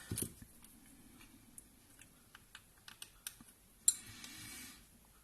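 Scattered light clicks and taps of small tools and parts being handled on an iPad mini 2 opened for screen replacement, with one sharper click a little before four seconds in.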